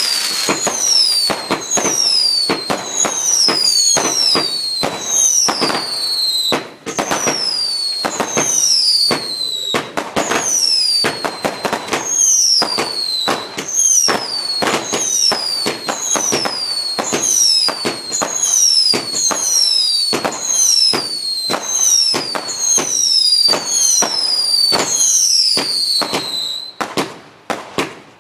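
A 200-shot firework barrage cake firing in rapid succession: a steady stream of sharp cracks and bangs, with a falling whistle on shot after shot, about one or two a second.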